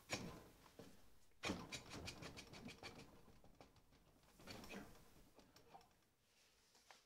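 Near silence, with a few faint clicks and rustles of hands working a press holding a jet pump. The clearest cluster comes about a second and a half in, and another near five seconds.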